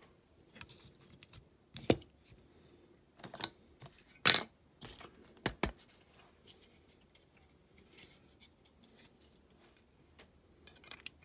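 Scattered small clicks and taps of the parts of a diecast model van being handled and fitted back together, the sharpest about four seconds in.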